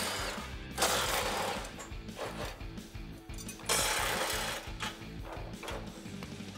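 Cordless Milwaukee M12 Fuel impact driver hammering in two short bursts, about a second in and again near four seconds, backing bolts out of a factory bumper with a 10 mm socket. Background music plays underneath.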